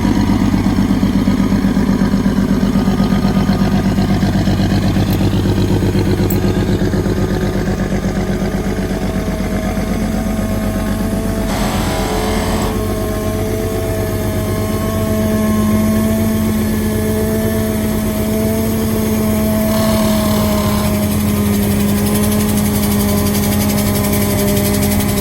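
Engine of a dry-mix shotcrete rig running steadily under load, with a steady drone and a humming tone. Two short bursts of hiss break in, about 12 seconds and 20 seconds in.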